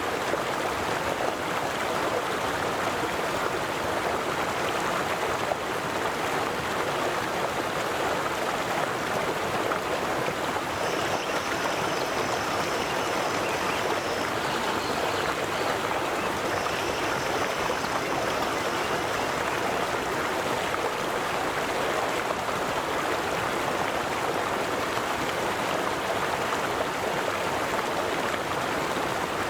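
River water rushing and gurgling in a steady, unbroken flow. A faint high-pitched trill sounds twice, each time for about three seconds, near the middle.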